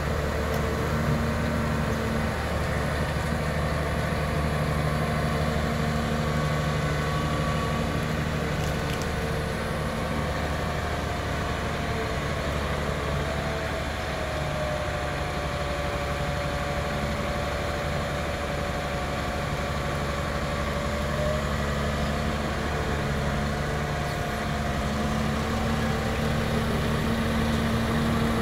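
Sampo FR68 forwarder's diesel engine running steadily at low revs as the machine drives slowly and steers. A whine above the engine note sinks in pitch for several seconds in the middle, then rises again.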